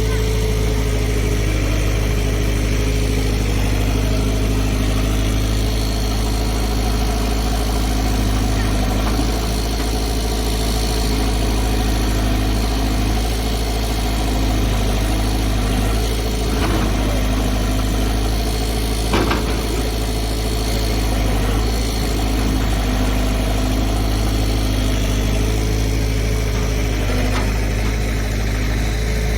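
Diesel engine of a Tata Hitachi amphibious floating excavator running steadily, with two brief knocks or clanks in the second half.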